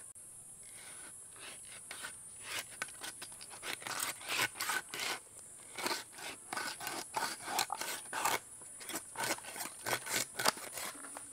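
A blade sawing through a large stingray's thick, sand-rough skin and flesh to split the fish down the middle: repeated irregular scraping strokes, a few a second.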